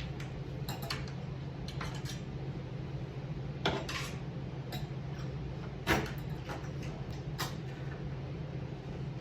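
Scattered sharp metallic clinks and taps, about seven in all, as a pry tool works a clip-held part loose from the car body. They play over a steady low hum.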